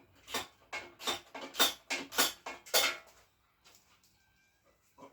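Metal hand tool working on the moped's bolts as they are tightened: about six short metallic clicking strokes in quick succession, stopping about three seconds in.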